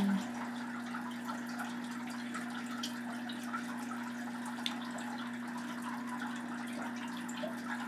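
Steady low electrical hum with an even hiss and a few faint scattered clicks.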